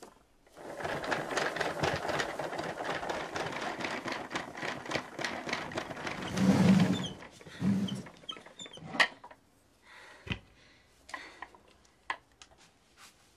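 Hand-cranked wooden centrifuge spun fast: a rapid, even rattle that runs about six seconds and then stops. A few light clicks and knocks follow as the test tubes are handled in the rotor.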